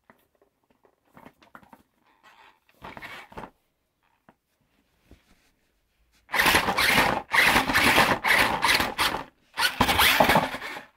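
Soft clicks, then about six seconds in a battery-powered RC monster truck (Spin Master Monster Jam Megalodon Storm) drives off: a loud electric-motor and gearbox whir with tyres scraping, coming in several surges with a short break near the end.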